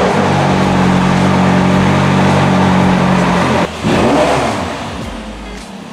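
McLaren twin-turbo V8 just after start-up, holding a loud, steady fast idle. About three and a half seconds in it drops off, then a quick rev blip rises and falls, and it settles to a quieter idle.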